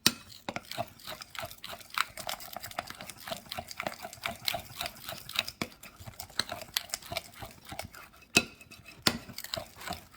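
A utensil stirring a thick frying batter in a bowl, clicking against the bowl several times a second, with one louder knock about eight seconds in.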